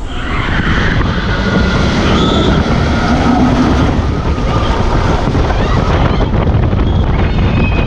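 Intamin launched inverted roller coaster train running at speed through its circuit, heard from the back row: a loud rush of wind over the microphone mixed with the rumble of the train on the steel track, growing louder about a second in.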